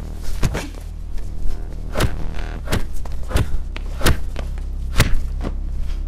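Film-fight punch and hit sound effects, about eight sharp impacts at uneven intervals, over a low steady bass drone from an electronic score.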